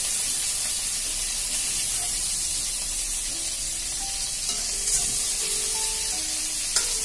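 Hot mustard oil sizzling steadily in a steel kadai just after prawns have been fried in it, a constant high hiss.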